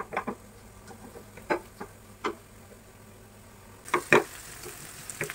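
Spatula stirring and scraping sliced onions in a frying pan: a handful of separate scrapes and taps, with a cluster of louder ones near the end.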